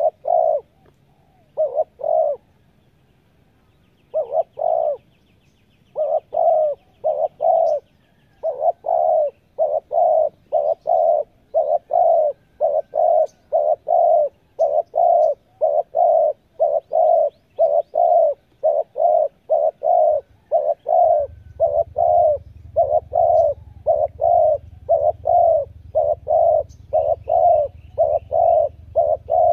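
Spotted dove (tekukur) cooing in a fast, rhythmic run of short notes, about two a second, with brief pauses in the first few seconds. A low steady hum comes in past the middle, and faint high chirps of small birds sound now and then.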